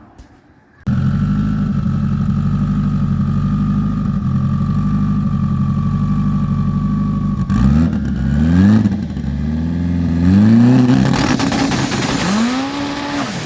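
A 1000 hp DSM's turbocharged engine, loud, cutting in suddenly and holding steady revs for several seconds at the launch. Then it accelerates hard, the revs climbing in about three rising sweeps through the gears.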